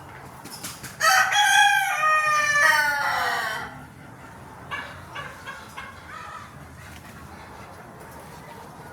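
A chicken crows once, a loud call of about two and a half seconds that falls in pitch at the end, followed a second later by a few short clucks.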